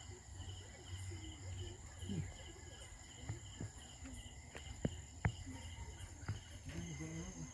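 Crickets chirping in a steady pulsing rhythm, with a continuous high insect trill behind them. A few sharp clicks come in the second half.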